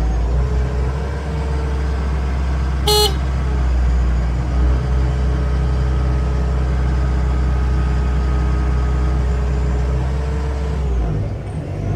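The Bobcat T740 skid steer's four-cylinder diesel engine runs steadily. One short beep sounds about three seconds in, and the engine note changes near the end.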